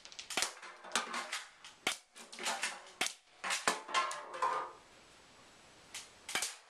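Spring-powered Smith & Wesson Model 645 airsoft pistol being fired again and again, the slide pulled back to cock it before each shot: a series of sharp snaps and clicks about once a second, with a short pause about five seconds in.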